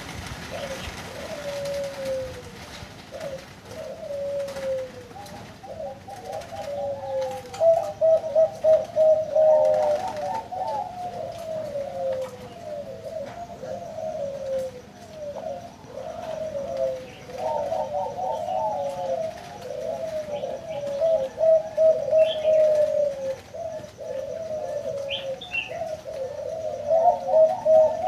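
Zebra doves (merbok) cooing, each phrase a rapid series of short, stepped coo notes. One bird calls at first, and from about five seconds in several voices overlap, with the loudest stretches near the middle and the end. A few faint, higher chirps come late on.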